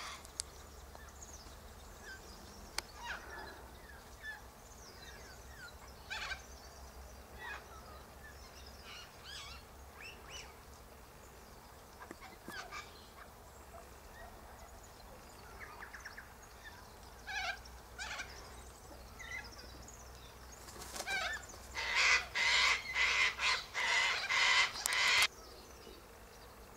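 Sulphur-crested cockatoos calling: scattered short calls, then near the end a run of about seven loud, harsh screeches in quick succession.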